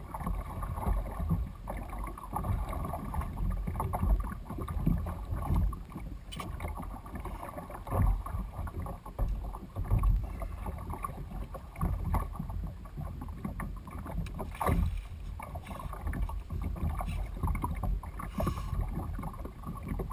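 Water splashing and slapping along the hull of a Malibu Extreme sit-on-top kayak as a hooked tarpon tows it, with wind buffeting the microphone.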